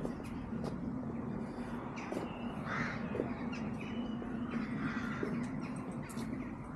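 Birds calling with harsh, crow-like calls now and then over a steady low hum.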